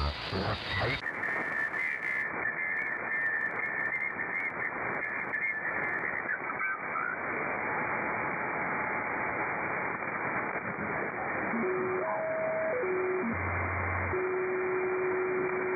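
Receiver audio from a Softrock Ensemble software-defined radio on the 160-metre amateur band in lower sideband: a steady hiss of band noise through a narrow filter. About a second in, the hiss turns duller as the filter narrows. Near the end, steady whistle tones from carriers jump from pitch to pitch as the radio is tuned across the band.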